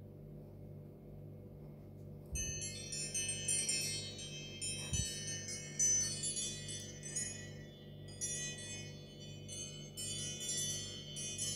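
iPhone SE ringtone playing: a bell-like chiming melody of many quick high notes that starts about two seconds in, after a faint steady low hum.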